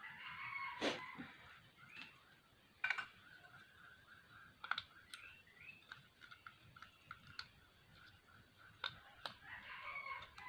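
A rooster crowing twice, once at the start and once near the end, with some chicken calls between. Scattered sharp clicks and taps run through it.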